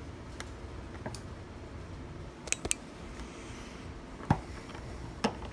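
Scattered small metallic clicks and taps of tools working a gumball machine's lock cylinder, about six in all, the loudest a sharp click about four seconds in.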